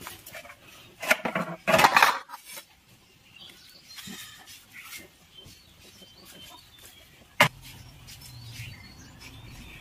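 A large kitchen knife scraping and knocking against an eel on a wooden chopping block, with two harsh scraping bursts about a second in and a single sharp metallic click near the end.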